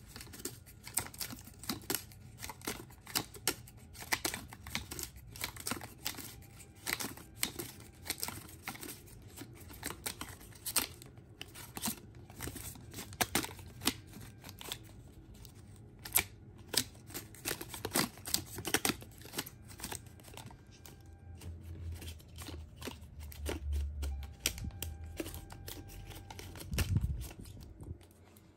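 Homemade cardboard slider-crank model turned by hand: its cardboard, wooden stick and wire-link parts click and rustle as the crank goes round, in a run of irregular sharp clicks, with a few dull bumps near the end.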